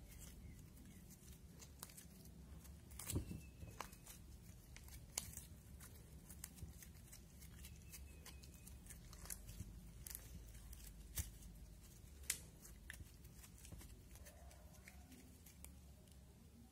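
Slime being kneaded, squeezed and stretched by hand, giving faint sticky clicks, crackles and small pops at irregular intervals, with a few louder snaps scattered through.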